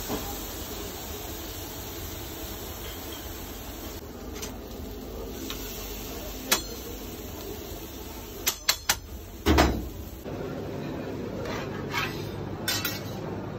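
Metal grilling utensils clicking and clattering against a charcoal grill's grate while a swordfish steak is handled: a single sharp click near the middle, then a quick run of clicks and a heavier clatter about two-thirds through, over a steady low background rumble.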